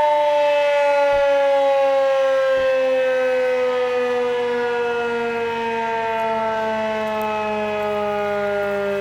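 Federal Signal 2001-SRNB outdoor warning siren winding down at the end of its alert test signal, its single loud tone falling slowly and steadily in pitch.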